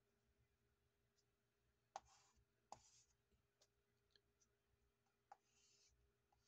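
Faint chalk strokes on a floor: a stick of cascarilla scraping briefly as lines are drawn, with a few sharp taps as it touches down.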